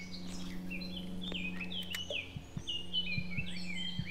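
Songbirds singing, with quick chirped and whistled notes overlapping throughout, over a steady low hum. A few soft low thumps come in the second half.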